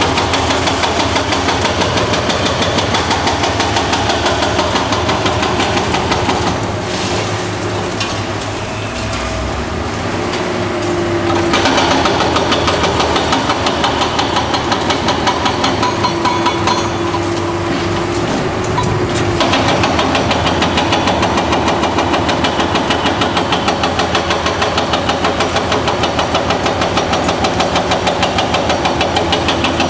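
Liebherr R954B HRD high-reach demolition excavator's diesel engine running with a steady pulsing beat while its hydraulic crusher works concrete. Its hydraulics strain with a steady whine for several seconds around the middle.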